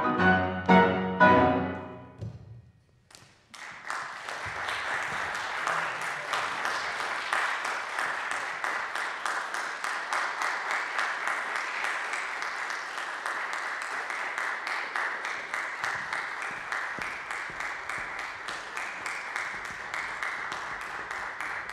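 Clarinet, cello and piano play the final loud chords of a piece, which ring out and fade over about two seconds. After a short pause, applause starts and keeps going steadily.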